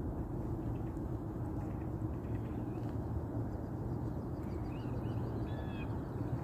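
Steady low outdoor rumble of open-air ambience, with a few faint, short bird chirps about five and six seconds in.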